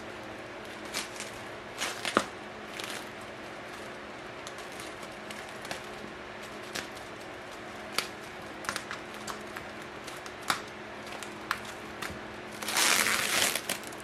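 Unboxing handling noises: packaging crinkling and rustling, with scattered light clicks and taps, and a louder rustle lasting about a second near the end.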